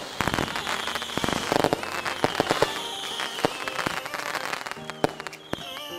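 Fireworks going off in a steady volley of crackling bangs, with short whistles that fall slightly in pitch.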